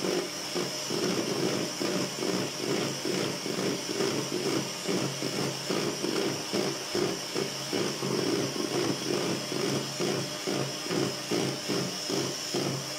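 Handheld electric mixer running continuously, its beaters whipping whipped-cream powder and cold milk in a bowl, a mix that is beaten until it doubles in volume. The motor hum swells and dips in a quick, even rhythm, a few times a second.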